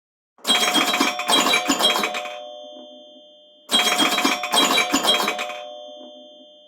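An iPhone ringtone: a short phrase of several quick strikes whose tones ring on and fade, played twice, the second time about three seconds after the first.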